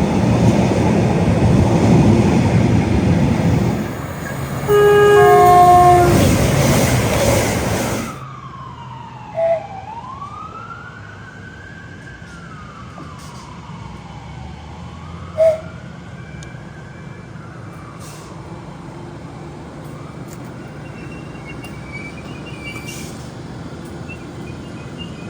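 A train passes at speed and sounds its horn in a loud blast about five seconds in. After an abrupt cut, a siren wails slowly up and down twice, with two short loud blips.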